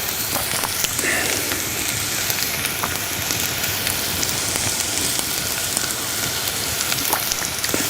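Chopped Alexanders and wild garlic frying in hot hazelnut oil in a pan: a steady sizzle with many fine crackles.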